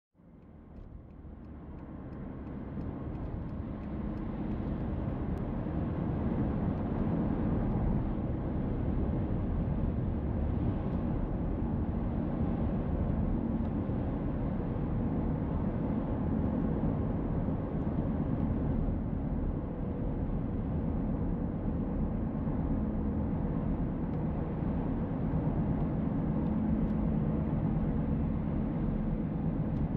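Steady road and engine noise of a car on the move, heard from inside the car, with a low hum. It fades in over the first few seconds and then holds even.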